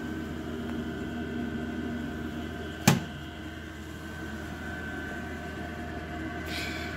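A desktop laser cutter's hinged lid is shut with a single sharp knock about three seconds in, over a steady hum of running machinery with a faint high whine.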